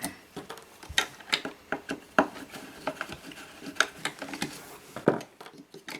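Small screws and their washers being undone by hand with a screwdriver: scattered light metallic clicks and clatters, with the loudest click about five seconds in.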